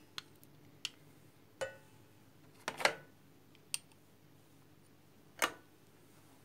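A handful of light, separate clicks and knocks of kitchen utensils and dishes being handled, with quiet between them.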